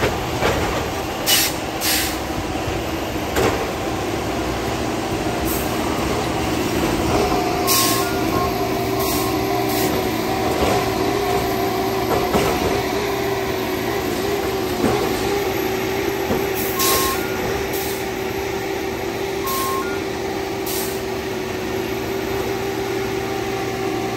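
Diesel-powered rail-mounted track maintenance machine of a tie-replacement gang running steadily. About a dozen short, sharp hisses of air release come at uneven intervals, along with a few brief beeps.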